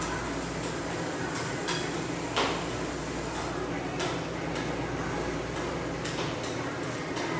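Metal spatulas chopping and scraping ice cream base on a steel cold plate for rolled ice cream: irregular clacks and scrapes, the loudest about two and a half seconds in, over a steady low hum.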